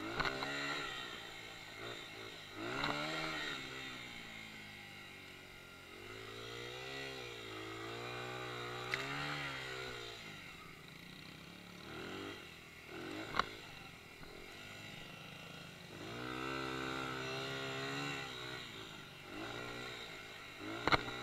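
Dirt bike engine revving up and falling back again several times while riding in loose sand, with three sharp clicks along the way.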